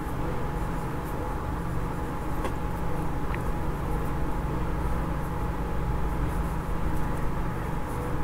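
Steady low background rumble and hum with a thin steady tone, over faint light scratches of a fine-nib fountain pen writing on paper.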